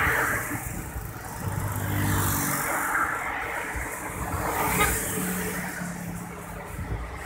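Vehicle engine running with road noise while riding in slow traffic, the engine note picking up at times.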